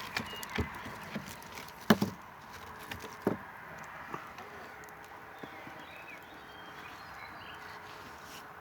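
Wood crackling in a campfire: a run of sharp pops in the first few seconds, the loudest about two seconds in, then a quieter steady hiss with only an occasional small crack.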